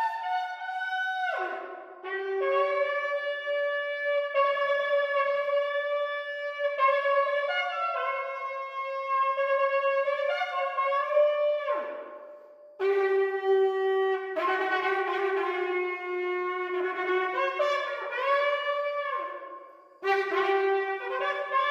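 A 36-inch shofar blown in long blasts, broken by short pauses for breath about two, twelve and twenty seconds in. Within each blast the pitch steps between a few notes, and each blast ends with a falling slide in pitch.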